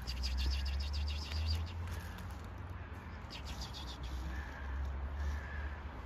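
Small birds twittering in quick runs of high chirps, one at the start and another about three and a half seconds in, over a steady low rumble.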